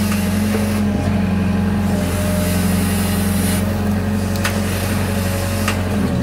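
Hitachi 60-class excavator's diesel engine running steadily under load, heard close up from the operator's seat, as the boom and bucket work.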